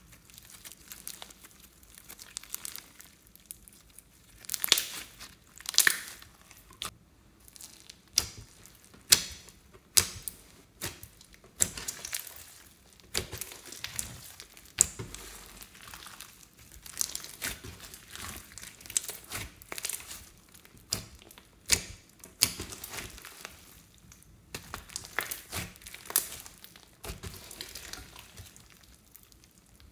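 Glossy slime mixed with foam beads being squeezed, stretched and kneaded by hand: sticky squishing with irregular crackles and sharp pops as the slime and beads are pressed and pulled apart.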